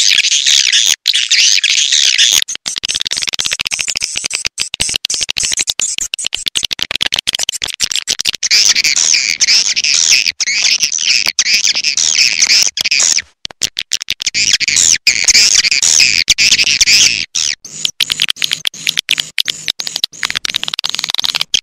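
Swiftlet call sound, the recorded twittering of edible-nest swiftlets played through a swiftlet house's speakers to lure the birds in. It is a dense, rapid, high chirping chatter with brief breaks. For a stretch in the middle a low steady hum sits underneath.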